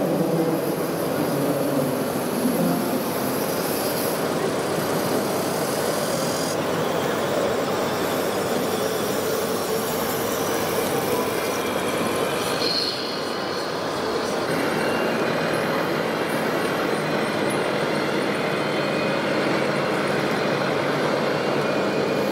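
Steady running noise of radio-controlled model trucks driving on a layout, over the background din of an exhibition hall.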